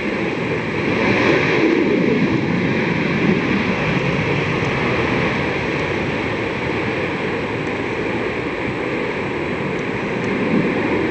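Twin-engine F/A-18 jet fighter on its afterburner take-off roll: a loud, steady jet roar.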